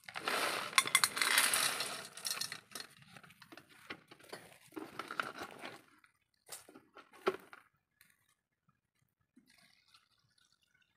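Seawater poured from a plastic pail into a metal cooking pot: a loud splash for about two seconds, then an uneven trickle that dies away about six seconds in, followed by a couple of light knocks.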